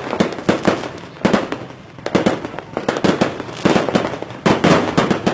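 Fireworks going off in a rapid, irregular string of sharp bangs and cracks, several a second, easing briefly about two seconds in before picking up again.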